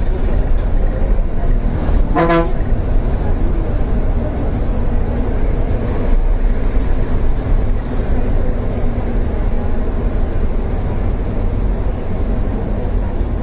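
Steady engine and road noise inside a moving city bus, with one short horn toot about two seconds in.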